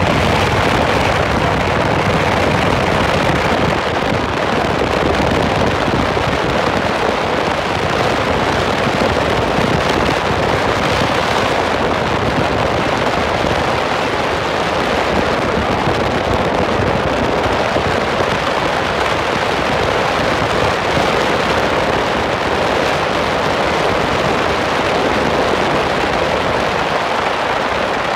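Steady rushing wind and road noise from a car driving along at speed, with wind buffeting on the microphone.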